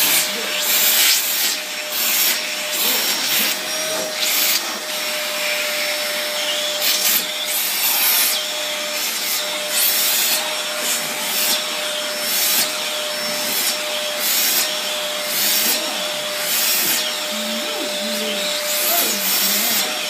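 Vacuum cleaner running steadily with a constant motor whine, the hiss of its suction surging again and again as the nozzle is worked over a cat's fur.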